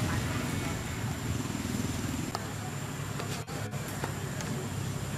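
Steady low motor hum under a background hiss, with a brief dropout about three and a half seconds in.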